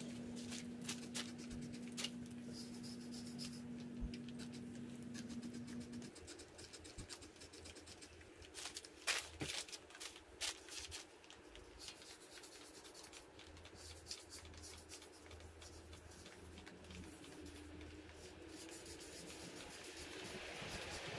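Hand trigger spray bottle squirting degreaser onto an engine block in many short hisses, with brush scrubbing on the block near the end. A low steady hum runs for the first six seconds or so, then stops.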